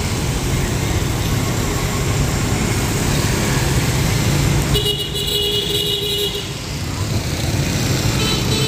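Motorbike and traffic engines running steadily at a fuel station, with a vehicle horn sounding for about a second and a half near the middle and briefly again near the end.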